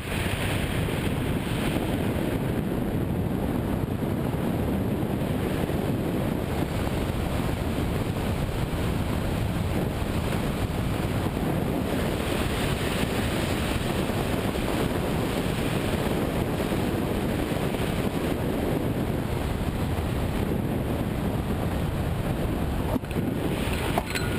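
Steady rush of airflow over the glider-mounted camera's microphone as a hang glider flies fast and low in a wind.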